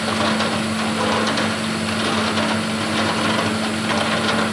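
Tube ice machine running: a steady low hum under a continuous mechanical rattle of small, irregular knocks and clicks.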